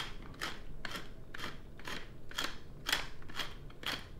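Hand pepper mill being twisted, grinding black peppercorns: a rasping crunch with each twist, about two a second.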